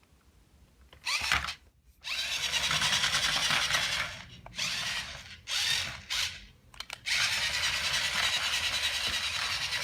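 Small electric motor and gears of a toy remote-control car whirring as it drives, starting and stopping several times in short runs, then running steadily for the last few seconds.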